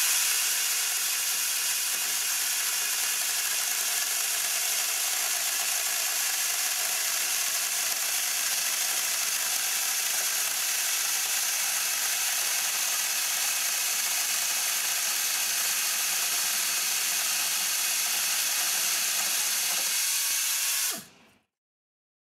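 SPITZNAS pneumatic chainsaw with a planer-tooth chain cutting through a thick-walled Delrin plastic pipe: the air-driven saw runs with a steady high rushing whir as the chain cuts the plastic, then stops abruptly about 21 seconds in when the cut is done.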